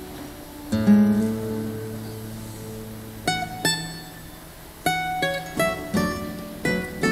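Andean string trio playing an instrumental piece on plucked string instruments: a low chord rings out about a second in and slowly dies away, then single plucked notes pick up from about three seconds in, coming faster near the end.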